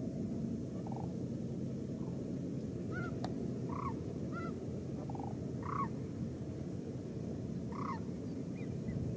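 Sandhill cranes giving scattered short rolling calls, several brief arched notes a second or so apart, over a steady low background rumble.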